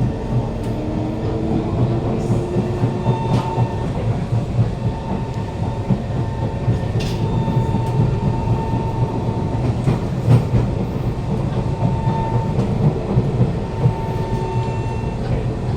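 Kawasaki C151 metro train running between stations, heard inside the car: a steady rumble from the wheels on the track with scattered clicks, and a traction-motor tone that rises in pitch over the first few seconds.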